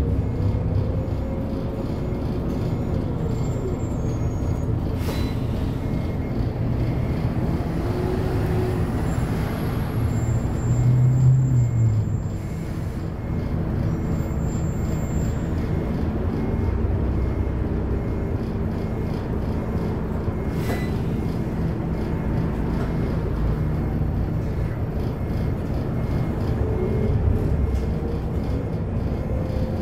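City bus heard from inside its passenger cabin: the engine and drivetrain run with a low rumble, and a faint whine rises and falls a few times as the bus moves off and slows. A couple of short knocks come through the body.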